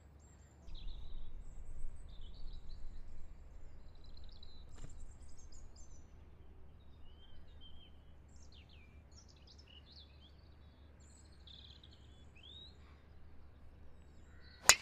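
Small birds chirping, with a low rumble over the first few seconds. Near the end, one sharp crack as a driver strikes a golf ball off the tee.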